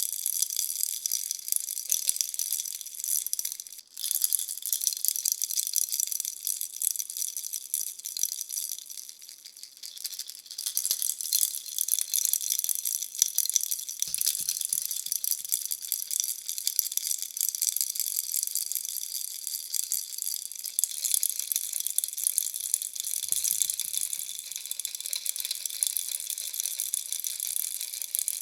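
Plastic bunny baby rattle shaken steadily, its beads rattling in quick, dense strokes, with a brief break about four seconds in and a quieter stretch around ten seconds.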